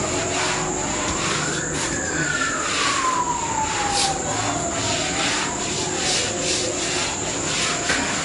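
A cloth being rubbed over freshly glued vinyl flooring, under a steady hiss. Behind it a whine rises for about two seconds, falls slowly, then rises and falls again more gently.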